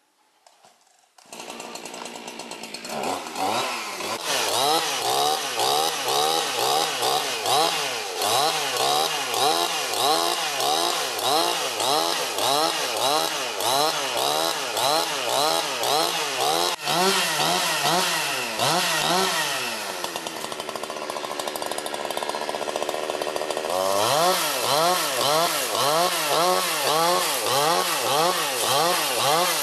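Two-stroke petrol chainsaw running and cutting into a log, its revs rising and falling about one and a half times a second. About twenty seconds in it eases down lower, then revs back up sharply a few seconds later.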